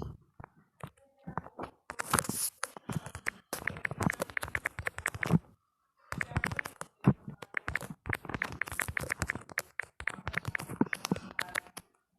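Rapid key-click sounds from a smartphone's on-screen keyboard, as messages are typed fast. There are two long runs of taps, about ten a second, with a short pause between them.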